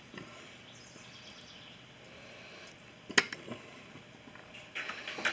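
Faint room noise broken by a single sharp click about three seconds in and a few light knocks near the end.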